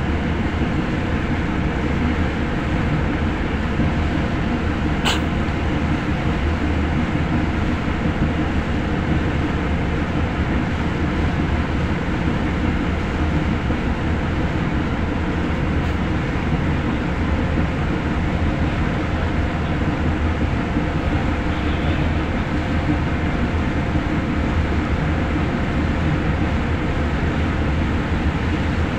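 Steady rumble of a tugboat's diesel engines, mixed with wind and rushing water. A single sharp click sounds about five seconds in.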